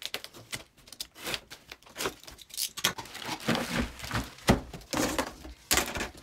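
A cardboard carton being unpacked by hand: packing tape tearing off the top, then cardboard flaps and an inner box rustling and scraping, with plastic wrap crinkling. The sound is a run of irregular rustles and short scrapes.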